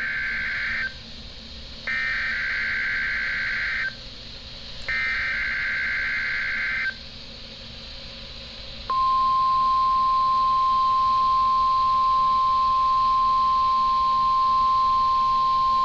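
NOAA Weather Radio alert signals: the end of one SAME digital header burst and two more, each a roughly two-second buzzy warble of rapid two-tone data with a second's gap between them, then about nine seconds in a single steady 1050 Hz warning alarm tone starts and holds. It is the weekly test of the warning alarm.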